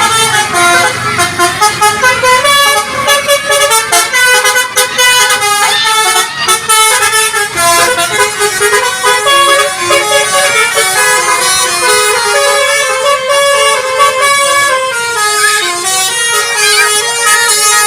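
Indonesian 'telolet' musical bus horn playing a tune, its loud horn tones stepping quickly from note to note without a break.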